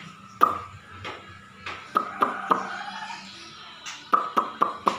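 Caged poksay (laughingthrush) giving sharp clicking notes. A few come scattered at first, then a quick run of about four a second near the end.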